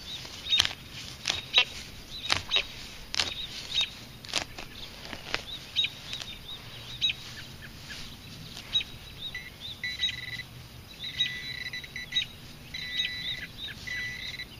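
Sharp knocks and scrapes of soil and a grass plug being handled at a dug hole. Then a handheld metal-detecting pinpointer in the hole gives fast electronic chirps that turn, from about nine seconds in, into repeated longer steady beeps as it closes on the buried target.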